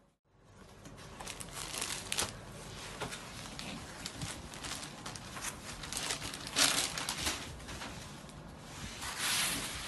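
Kanjivaram soft silk saree with zari weaving rustling as it is unfolded and handled by hand, in irregular bursts, loudest about two, seven and nine seconds in.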